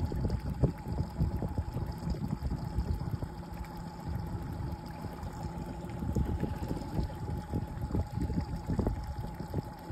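Boat motor running steadily with a constant whine while trolling, over irregular low knocks and splashing of water against the hull.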